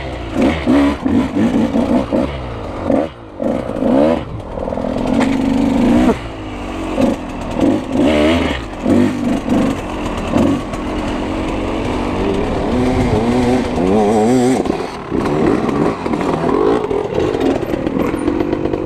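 Dirt bike engines idling and revving, the pitch rising and falling with repeated throttle blips, more than one engine running at once.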